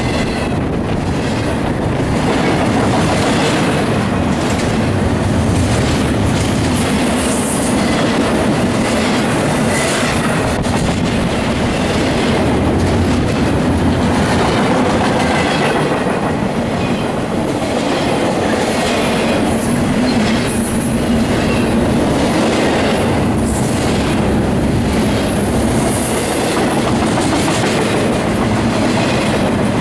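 Double-stack intermodal freight train's well cars rolling past close by: steady loud noise of steel wheels on the rails, with the clickety-clack of wheels over the rail joints.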